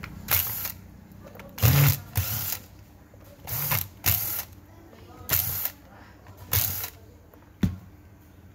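Cordless impact driver backing out housing screws in seven short bursts, each under half a second, with a sharp click near the end.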